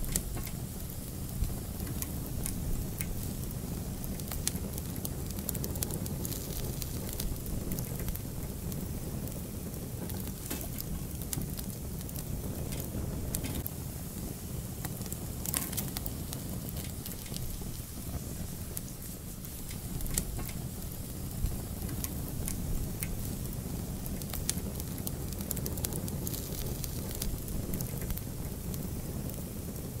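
Fire burning in a fireplace, crackling with irregular sharp pops over a steady low rumble.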